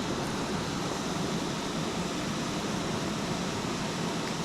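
Steady rushing of flowing creek water, an even hiss that never breaks.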